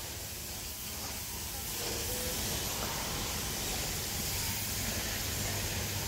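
Steady hiss of outdoor background noise with no distinct events, growing a little louder after the first second or so.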